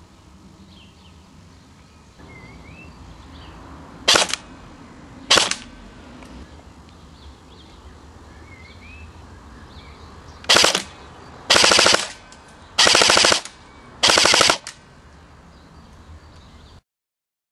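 A&K LR300S custom airsoft electric rifle firing in full auto: two short bursts, then four longer bursts of rapid shots in quick succession.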